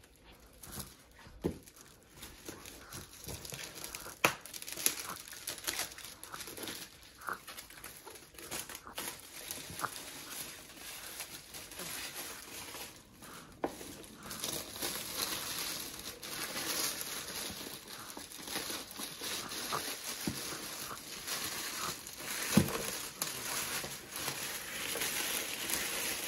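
Shiny metallic foil gift wrap crinkling and tearing as a present is unwrapped, with scattered sharp crackles and clicks. The crinkling grows denser and steadier in the second half.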